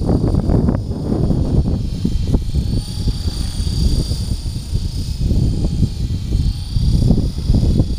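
Align T-Rex 450 XL electric RC helicopter hovering, its motor and rotor whine rising a little in pitch midway and wavering. Heavy wind rumbles on the microphone and is louder than the whine.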